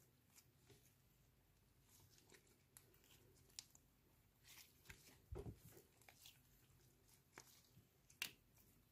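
Glossy slime being stretched and squeezed by hand: faint, scattered sticky clicks and pops, with a louder low thud a little past halfway and a sharp click near the end.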